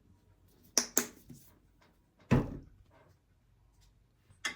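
A few knocks and clatters of objects being handled and set down on a hard surface, the loudest and deepest about two and a half seconds in.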